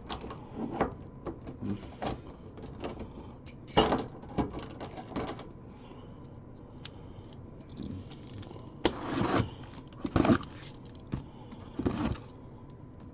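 Cardboard shipping case being opened by hand: scattered knocks and clicks with a few short scraping bursts, the loudest about nine seconds in.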